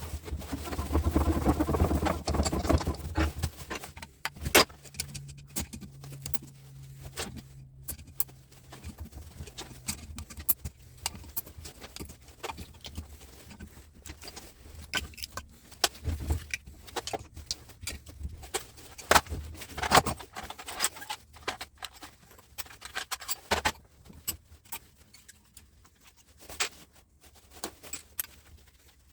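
Rapid metallic clinks, knocks and rattles of hand tools and metal parts as a large electrical switchgear unit is dismantled, with a louder clatter in the first few seconds and a low steady hum for a few seconds after that.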